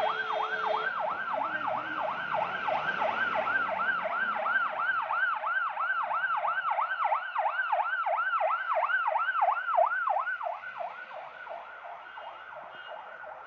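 Ambulance siren yelping, a fast rise and fall in pitch about four times a second, fading as the vehicle drives away near the end.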